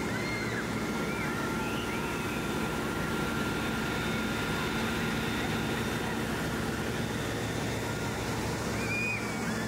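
Steady rush of water spray from fire engine hoses with the truck's pump engine running underneath, and children shrieking now and then in the first couple of seconds and again near the end.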